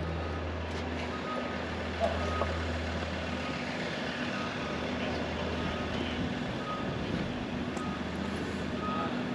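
Steady background hum with a faint short high beep repeating every couple of seconds.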